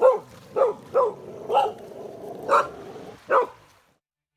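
A dog barking six times in quick, uneven succession.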